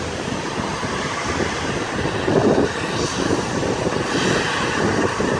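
Jet engines of a Delta Connection CRJ regional jet at taxi power, heard as a steady rushing noise.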